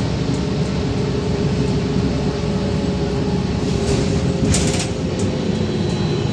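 Inside a moving VMZ-5298.01 trolleybus: a steady low rumble of tyres and body with a steady whine from the electric traction drive, sinking slightly in pitch. A short burst of hiss-like noise about four and a half seconds in.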